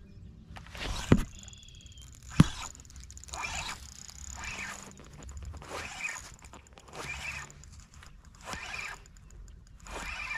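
Handling noise from an angler working a fishing rod and reel: two sharp clicks in the first few seconds, then rustling bursts that come about once a second.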